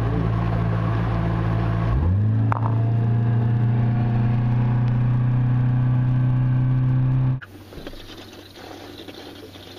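Boat's outboard motor running at speed. About two seconds in its pitch rises as it is throttled up, then holds steady before cutting off abruptly near the end.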